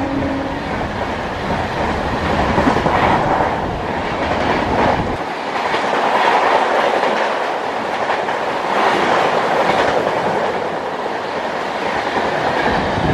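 Express train's passenger coaches rushing past at speed close by: a loud, steady rush of wheels and air with clickety-clack of the wheels over the rail joints. The WAP7 electric locomotive's horn cuts off within the first second.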